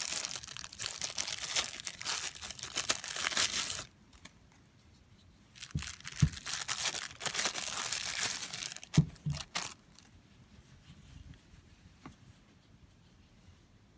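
Thin clear plastic bag crinkling as a packaged knife is handled and unwrapped, in two spells. Then two light knocks about nine seconds in.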